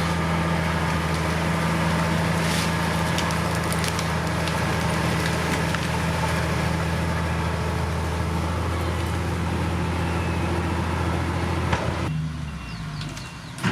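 Heavy diesel engine of earthmoving equipment running steadily with a deep, even drone and scattered clicks and knocks. About twelve seconds in, the engine sound drops away suddenly, leaving a quieter background and a sharp knock near the end.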